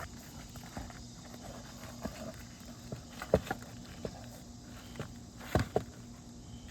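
Scattered knocks and taps of roofing work on a shingle roof, as a damaged shingle is worked loose and its nails pulled; the loudest knock is about halfway, with a close pair near the end.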